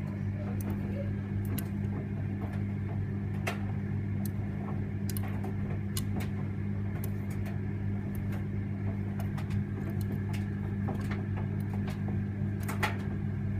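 Electra vented tumble dryer running: a steady motor hum, with scattered light clicks throughout, the clearest about three and a half seconds in and near the end.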